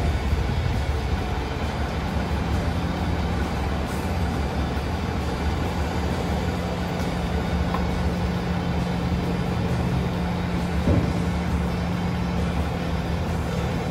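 Diesel engine of a working excavator running steadily under load, a low rumble with a steady hum that sets in about a second and a half in.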